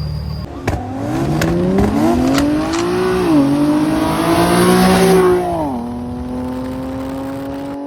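A car engine revving up as it accelerates, its pitch climbing, dipping briefly about three seconds in as if through a gear change, climbing again, then dropping and running at a steady pitch for the last couple of seconds. A few sharp clicks sound during the first climb.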